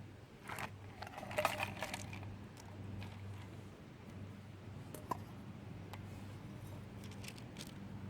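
Light clicks and rattles of small objects being handled, bunched about a second in, with a few single ticks later, over a steady low hum.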